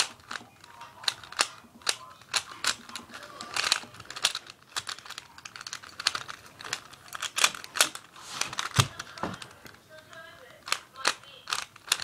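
Rubik's Cube layers being turned by hand through a solve: a quick, irregular run of sharp plastic clicks and clacks close to the microphone.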